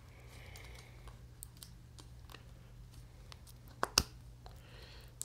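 Fingers picking at the plastic wrapping on a new tennis racket's grip: faint scattered clicks and crackles, with two sharp, louder clicks close together about four seconds in.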